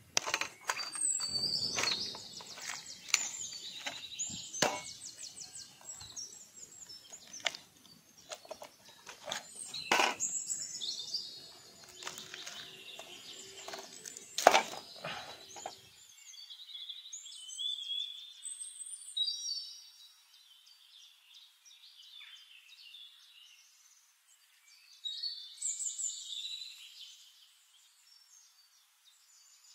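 Small birds chirping outdoors in short repeated calls. Scattered sharp clicks and knocks fill the first half, the loudest about ten and fourteen seconds in.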